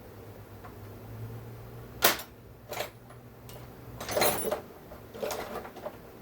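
Sharp clicks and clattering of metal tools and saw parts being handled during a chainsaw teardown, a few separate knocks with a louder cluster of clatter past the middle, over a low steady hum.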